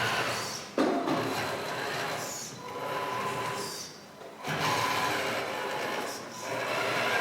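Small electric motors and hydraulic pumps of RC construction models whirring in bursts, with a thin steady whine through each run and brief pauses about a second in and just after the middle.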